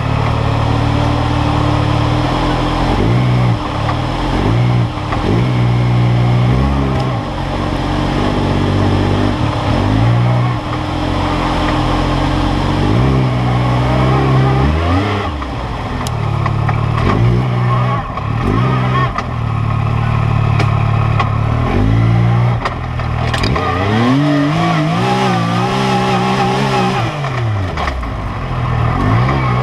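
Yamaha YXZ1000R SE's three-cylinder engine heard from the cab, revving up and down again and again as the machine crawls over rough trail. There are a few sharp knocks along the way.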